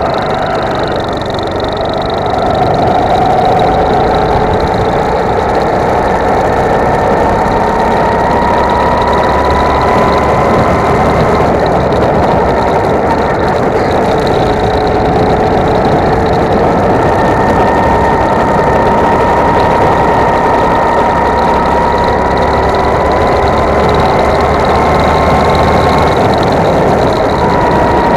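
Go-kart engine heard close up from on board, running continuously at speed, its pitch slowly rising and falling as the kart speeds up and slows through the laps.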